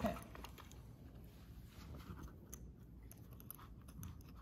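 Faint clicks and scrapes of Allen wrenches working in the holes of a Dornbracht air switch's ring as it is twisted by hand, with one louder knock right at the start. The ring is stuck and hard to turn.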